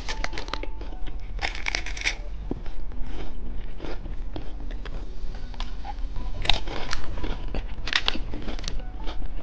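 Hard candy being crunched and chewed close to the microphone: a run of sharp crackles with louder crunches about a second and a half in and twice more near the end.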